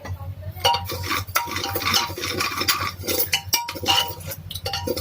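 A spoon stirring dry broken wheat (daliya) as it dry-roasts in a pot without ghee, with repeated scrapes and clinks against the pot.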